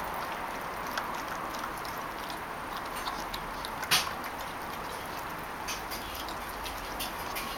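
Labrador puppy chewing and licking a raw chicken leg: scattered small wet clicks and smacks, with one sharper click about four seconds in, over a steady background hiss.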